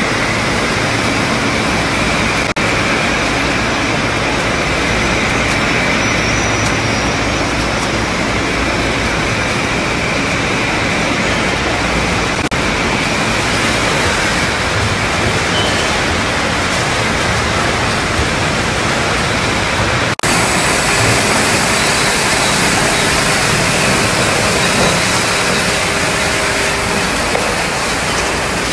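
Steady, loud noise of factory machinery running: conveyor belts and packaging machines on a dairy production line. It drops briefly about twenty seconds in, and afterwards a faint steady hum sits under the noise.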